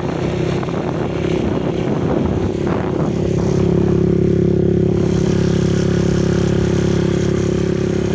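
Small motorcycle engine running steadily while riding, with a steady hum that grows a little louder about three and a half seconds in.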